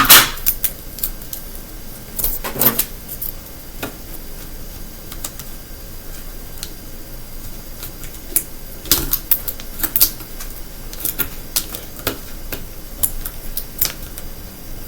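Sticky tape and a plastic bottle being handled as a ruler is taped onto the bottle: irregular clicks and crinkles that come in clusters, with quieter gaps between.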